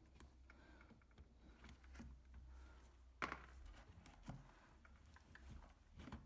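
Near silence with a few faint plastic clicks, the clearest about three seconds in and another just after four, as a dishwasher drain pump and its wiring clip are handled.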